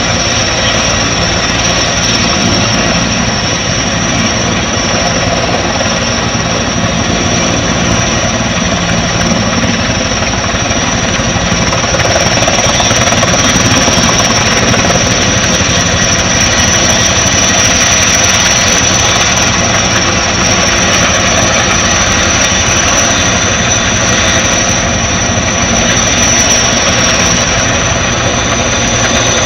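Firefighting helicopter running close by: a loud, steady turbine whine high above the rotor and engine noise.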